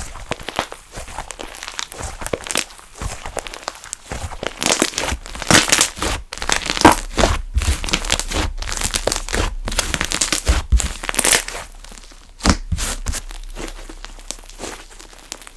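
Slime being squeezed and stretched by hand, giving a dense run of small irregular crackles and sticky clicks that grows busier and louder through the middle and thins out near the end.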